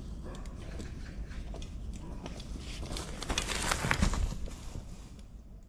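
Mountain unicycle rolling over dry pine needles and leaves on a forest trail, a dense crackling and crunching that grows louder as it passes close by about four seconds in, then fades away.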